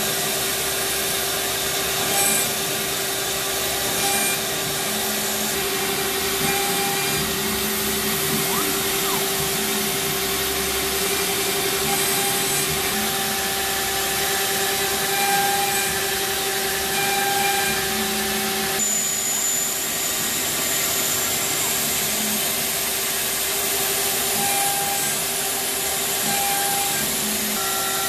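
CNC router spindle running and cutting a grid of holes into a quarter-inch fixture plate, over the steady drone of shop vacuums for the hold-down and the dust shoe. The pitch of the machine sound shifts about two-thirds of the way through.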